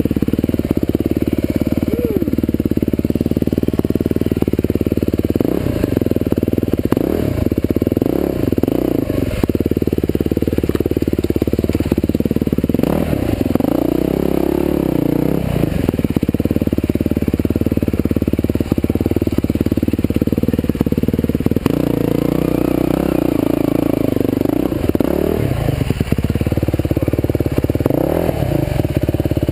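Big-bore Husqvarna TE511 single-cylinder four-stroke dirt bike engine running under the rider, its revs rising and falling again and again as the throttle is opened and closed.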